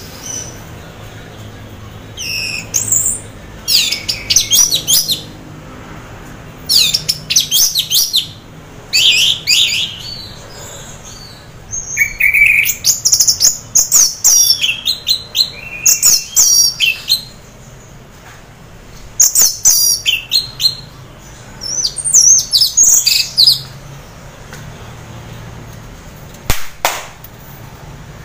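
Orange-headed thrush singing a rapid, varied song in short phrases of high, gliding whistles with brief pauses between them. It is in the fluent 'teler' singing state of a bird half in breeding condition, the kind of song keepers play to get other orange-headed thrushes to sing. A single knock comes near the end.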